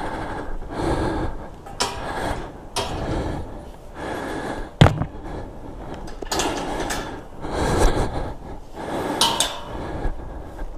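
Steel kissing gate being pushed open and swung through, its bars clanking: the sharpest metallic clank is about five seconds in, and another comes near the end. Between them are footsteps and rustling through long grass, about one step a second.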